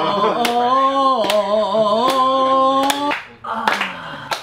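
A voice singing long held notes over evenly spaced hand claps, about two claps a second, breaking off about three seconds in; a short noisy stretch follows.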